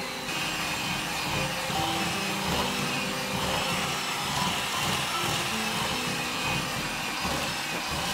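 Electric hand mixer running steadily, its beaters whipping a thick chocolate cream cheese mixture in a stainless steel bowl, over background music.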